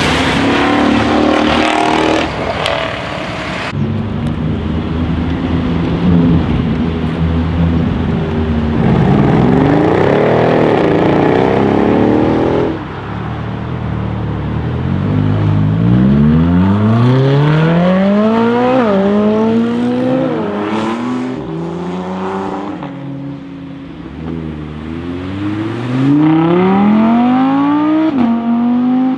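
Mercedes-AMG CLS63 S's twin-turbo V8 with a decat exhaust, running loud and then accelerating hard through the gears. Its pitch climbs steeply and drops sharply at each upshift, a few times over.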